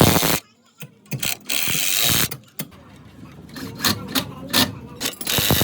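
Metal tools clicking and knocking during brake work, with two bursts of hiss, one about a second and a half in and another near the end.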